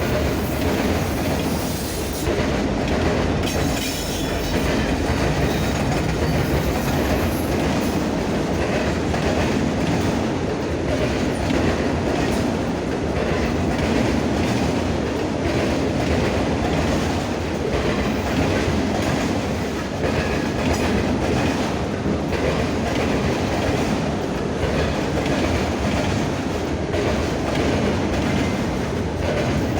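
Norfolk Southern freight train rolling past at close range: a steady rumble of cars on the rails with a clickety-clack of wheels over rail joints.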